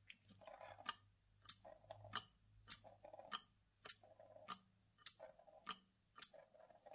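Hand-pumped brass bib oiler squirting oil: six even strokes of the plunger, each a short hiss of oil spraying from the spout with a sharp metal click at each end of the stroke. The restored pump is delivering oil.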